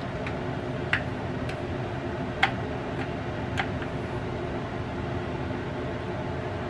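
Cosori air fryer oven running with a steady fan hum, with a few short sharp clicks and taps from plastic spice-bottle caps being opened and closed during the first few seconds.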